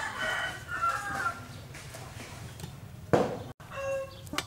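A rooster crowing, a call of about a second and a half, then a sharp click about three seconds in and a shorter second call near the end.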